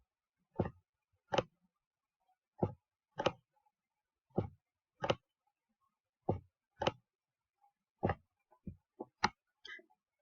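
A run of sharp clicks or taps, mostly in pairs a little under a second apart, a pair about every two seconds, with a quicker run of lighter clicks near the end.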